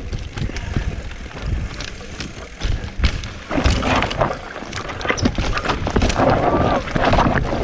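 Mountain bike riding down a loose, dry dirt trail: a steady low rumble of tyres and wind on the microphone, with frequent knocks and rattles from the bike over bumps.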